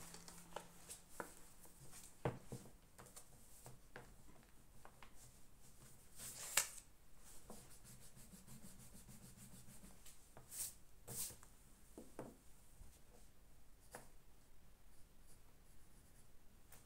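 Quiet desk sounds of studying: scattered light taps and clicks of pen and stationery, with a few brief rubbing swishes of paper, the loudest about six and a half seconds in and two more shortly after ten and eleven seconds.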